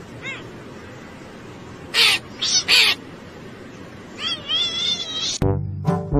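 A crow cawing: three harsh caws about two seconds in. Then a cat answers with a run of wavering, high calls. Near the end, music starts abruptly.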